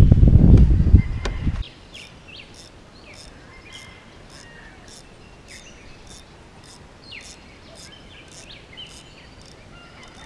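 A loud low rumble for the first second and a half, cutting off suddenly. Then quiet birdsong of short chirps, with a faint sharp tick repeating about twice a second.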